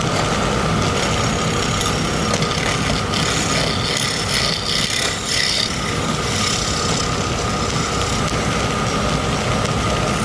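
Wood lathe running steadily with a thin whine while a turning tool scrapes the spinning wooden knob, the scraping hiss growing harsher in the middle few seconds.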